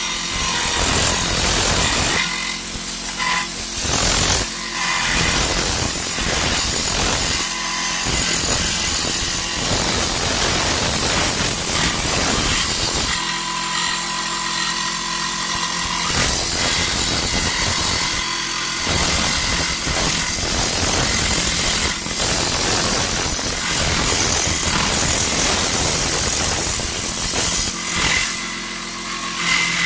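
Parkside 12V cordless reciprocating saw, mounted under a table as a precision saw, running and cutting through thin aluminium sheet: the motor's steady buzz with the blade rasping in the metal. The sound thins out at a few moments as the feed eases.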